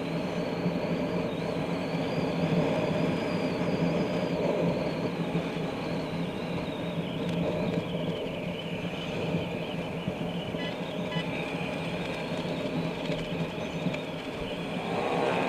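Automatic scooter riding along a city road at steady speed: a constant engine hum under steady rushing noise, with a thin high whine that slides lower in pitch about four to seven seconds in.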